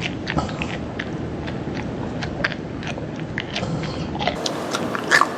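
A person chewing a mouthful of live mealworms: irregular crunchy clicks of biting and chewing.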